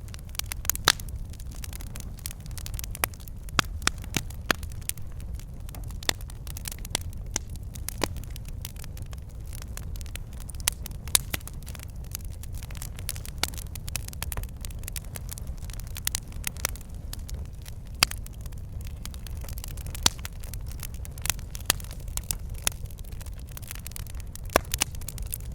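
Log fire crackling and popping: irregular sharp pops, a few louder ones, over a low steady rumble of flame.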